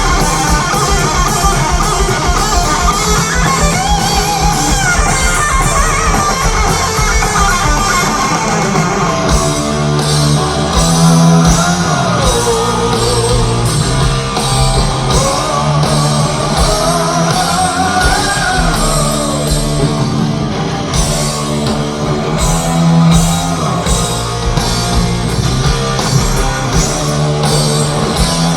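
Heavy metal band playing live, recorded from the audience: electric guitar with a bending lead line over steady bass and regular drum hits.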